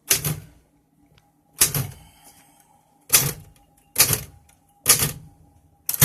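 1950 Royal typewriter typing slowly: six separate keystrokes, about one a second, each a sharp clack of the typebar hitting the platen with a short rattle after it.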